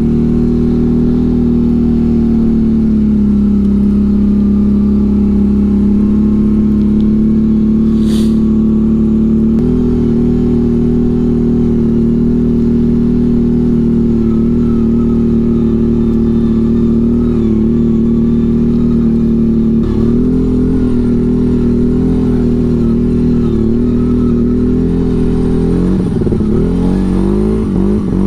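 CF Moto CForce 1000 ATV engine running at a steady throttle while the quad is driven in two-wheel drive after its drive shaft broke. The engine note holds steady, stepping up slightly a few times and becoming uneven near the end.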